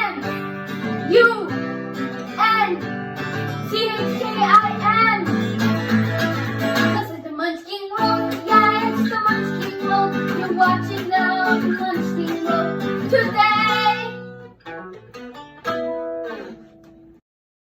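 Theme music: a strummed acoustic guitar with a singing voice, which thins out and stops shortly before the end.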